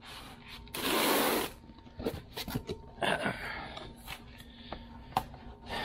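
Cardboard shipping box being pulled open by hand: a loud tearing rip about a second in, then the flaps and packing foam rustling and scraping, with scattered knocks.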